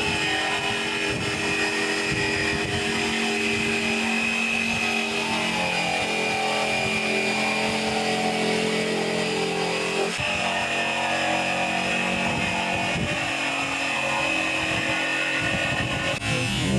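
An engine or motor running steadily, with a change in its tone about ten seconds in.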